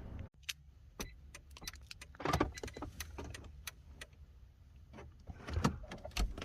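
Scattered light clicks and small knocks of hands handling keys and tools, with louder rustling bursts about two seconds in and again near the end.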